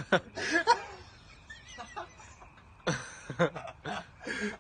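People laughing and snickering in two short bursts, the second starting about three seconds in.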